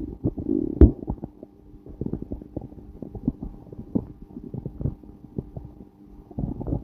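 Human stomach growling and gurgling. A louder gurgle just after the start ends in a sharp pop, then irregular small gurgles and pops follow, swelling again near the end.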